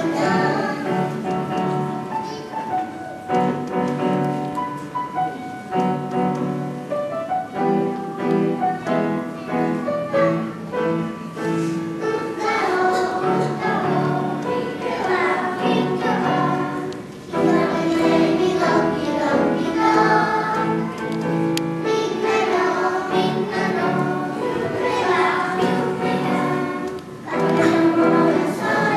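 Children's choir singing a song in unison with piano accompaniment, pausing briefly between phrases.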